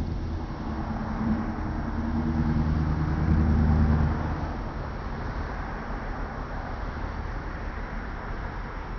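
Low engine drone with a steady hum, swelling to its loudest about three to four seconds in, then fading to a duller rumble.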